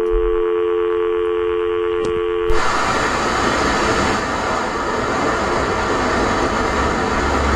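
Telephone line tone of two steady pitches after the call drops, lasting about two and a half seconds and cutting off suddenly. A loud, steady rushing noise follows for the rest of the time.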